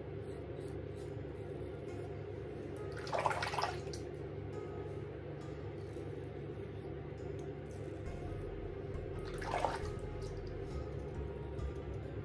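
Two short scraping strokes of a Mühle Rocca R96 safety razor with a Feather blade cutting stubble through shaving cream on the neck, one about three seconds in and another near ten seconds, over quiet steady background music.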